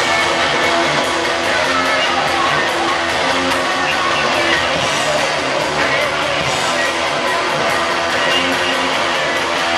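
A live band playing loud amplified music, led by electric guitar over a dense, unbroken wash of sound, as heard from the crowd at a club show.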